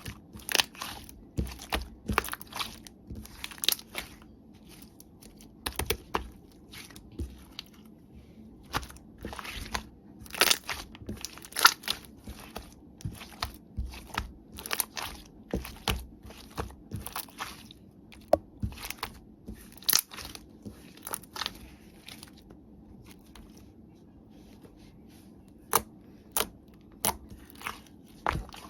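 Close-miked crunching: a run of sharp, crisp crunches and crackles at irregular intervals, easing off for a few seconds about three-quarters through.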